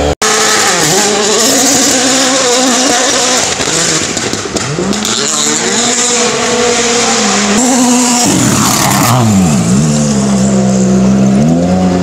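Rally car engine revving hard, its pitch climbing, then dropping sharply and rising again as the driver lifts off and changes gear. Twice it falls away steeply and picks back up.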